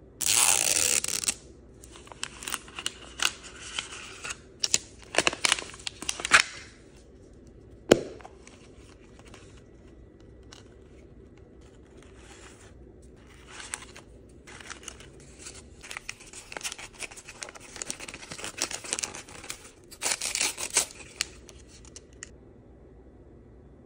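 Unwrapping an MGA's Miniverse toy capsule: its plastic wrap is torn off in the first second or so, then plastic and paper wrappers rustle and crinkle in bursts as the small parts inside are unpacked. A single sharp click comes about eight seconds in.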